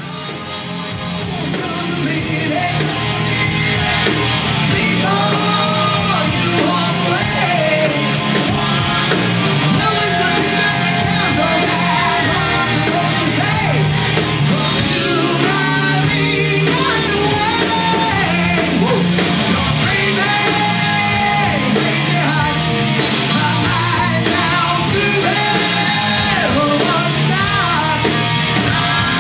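Live rock band playing at full volume: electric guitar, bass guitar and drum kit, with a lead voice singing over them. The sound fades up over the first few seconds.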